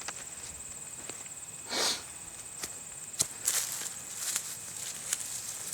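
Hand digging in garden soil: soft rustles, scrapes and small clicks of dirt and potato plants being handled, with one brief louder scrape about two seconds in. A steady faint high-pitched whine runs underneath.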